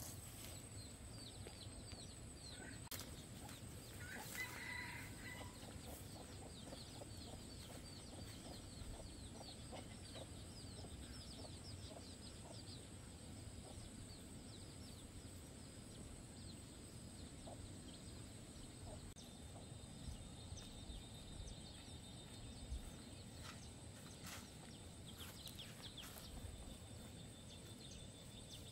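Chickens clucking faintly, with a quick run of short high chirps over the first half and scattered light knocks.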